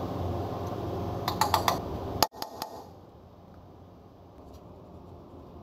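A quick run of light metallic clicks and taps as metal brake parts are handled by hand at a truck-trailer axle's brake spider, one sharper click standing out. A steady shop hum underneath falls away abruptly just after two seconds in.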